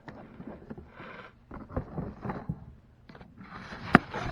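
Rustling and scraping of things being handled, with a sharp click about four seconds in, like a container being opened and its lid set down.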